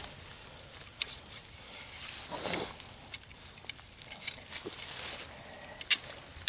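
Hands rustling through dry grass while setting a steel trap, with a few sharp clicks of metal, one about a second in and a louder one near the end.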